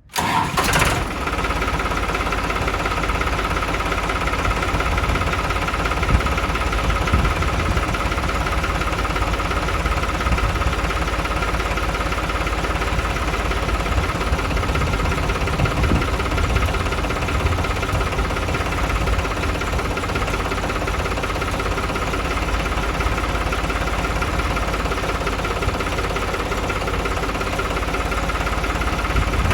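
New Holland 3630 tractor's diesel engine running steadily, freshly reassembled after a head gasket replacement.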